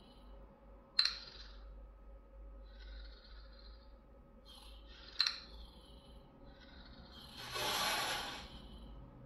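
Sound effects from an augmented-reality app playing through a phone's speaker: two sharp clicks, about a second in and about five seconds in, a few short high chirps, and a breathy hiss that swells and fades near the end.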